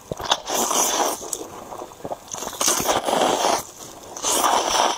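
A person slurping mouthfuls of sauced instant noodles off chopsticks: three long, loud slurps, each about a second long.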